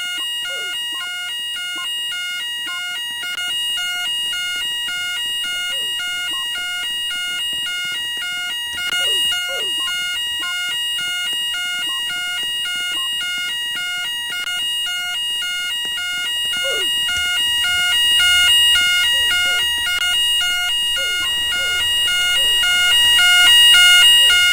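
Store fire alarm sounding: a rapidly pulsing electronic alarm tone over a steady high-pitched tone, getting somewhat louder in the last few seconds.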